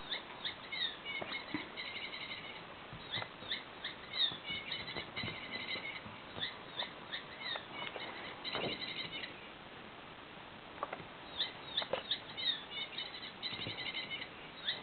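A squeaky toy mouse giving rapid high chirping squeaks in runs, mixed with light knocks and pattering as a cat bats and chases it. The squeaking stops for a moment about ten seconds in, then starts again.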